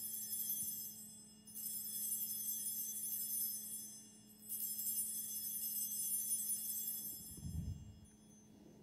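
Altar bells shaken in three rings at the elevation of the host during the consecration, each ring lasting about three seconds before fading. A soft low bump comes near the end.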